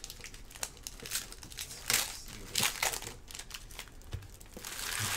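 Foil trading-card pack wrappers crinkling as gloved hands open and handle them, in a run of irregular crackles, loudest about two seconds in.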